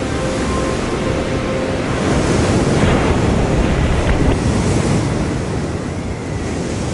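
Ocean waves surging and breaking, swelling to a peak about halfway through and easing off toward the end. Faint music tones fade out in the first couple of seconds.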